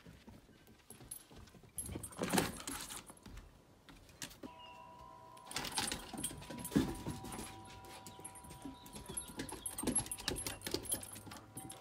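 Jingling and clattering from a black Labrador's collar, with scuffs and knocks as the dog moves around during a game of fetch. The loudest knocks come about two seconds in and again near seven seconds.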